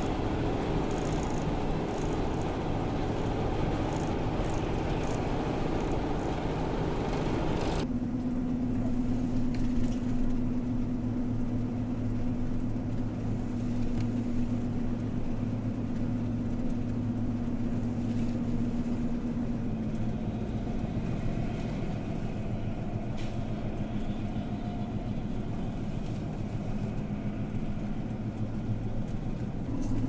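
Van engine and road noise heard from inside the cab while driving on a snowy highway. The sound changes abruptly about eight seconds in; after that a steady engine hum holds, dropping slightly in pitch about two-thirds of the way through.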